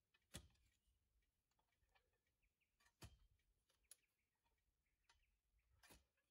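Faint thuds of a manual clamshell post-hole digger driven into sandy soil: three strikes about three seconds apart, with faint clicks between.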